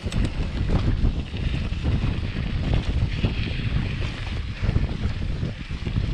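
Wind buffeting the microphone of a chest-mounted camera on a mountain bike riding a dirt trail: a loud, uneven low rumble.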